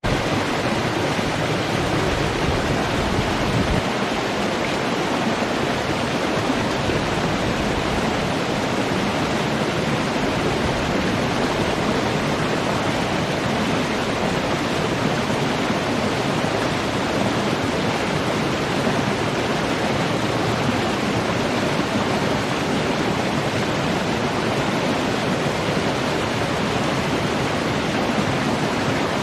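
Running water rushing steadily, with no change throughout.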